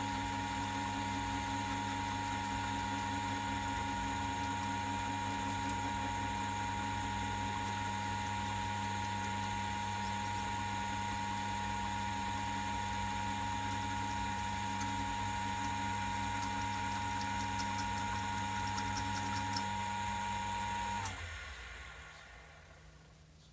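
Vintage metal lathe running steadily, a hum with a steady whine over it. Near the end it is switched off and winds down.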